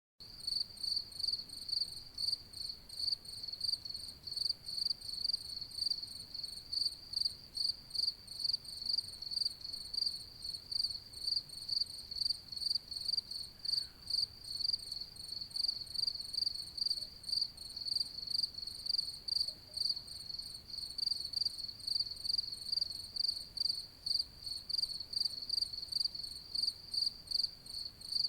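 A cricket chirping at night: a high-pitched chirp repeated at an even, quick rhythm, on and on without a break.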